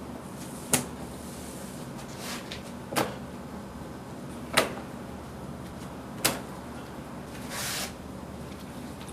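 Four sharp knocks, about a second and a half apart, over a steady low background hum, then a short hiss near the end.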